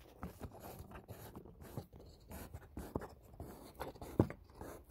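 Handling noise as a camera is set and adjusted on a tripod: light rubbing and scraping with scattered small clicks, and one sharper knock about four seconds in.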